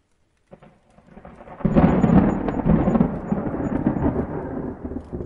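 A long roll of thunder. It starts faint about half a second in, swells sharply at about a second and a half, then rumbles on and slowly fades.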